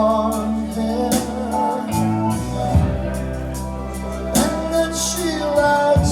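Recorded music played back over a hi-fi system's loudspeakers: a singing voice over sustained chords and steady bass notes, with a slow beat.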